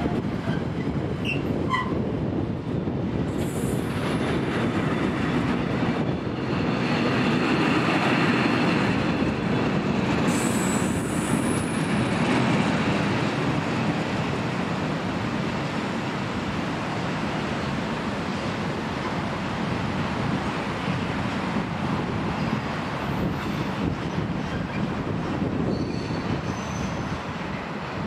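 Loaded container wagons of a freight train rolling past close by: a steady rumble of wheels on rail, with brief high-pitched wheel squeals a few seconds in and again about ten seconds in. It eases off slightly near the end as the tail of the train moves away.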